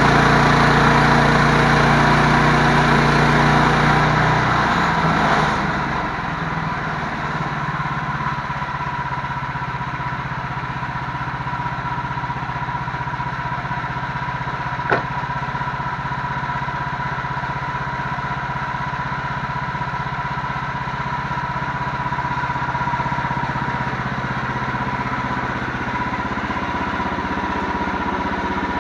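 An engine running, easing down from a higher speed about five seconds in and then running steadily, with a single sharp click about halfway through.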